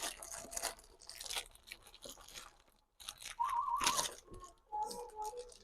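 A package being torn open and its wrapping crinkled: short, irregular rustles and crackles, with a faint wavering tone about halfway through.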